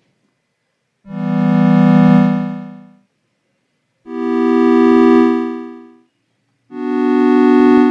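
Synthesizer pad played as three chords in turn, each swelling in slowly under a long attack envelope and then fading away. The filter cutoff is lowered to take off the highs, and a quieter square-wave oscillator is layered underneath.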